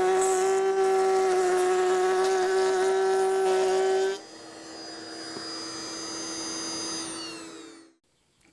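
Table-mounted router with a lock miter bit running at speed with a high steady whine while a board is fed through it. About four seconds in the cutting sound ends and the router runs on much quieter, then its pitch falls and it winds down to a stop just before the end.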